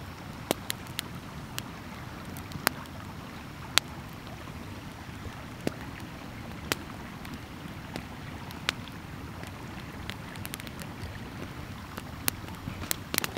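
Wood campfire crackling, with irregular sharp pops and snaps over a steady low rushing background.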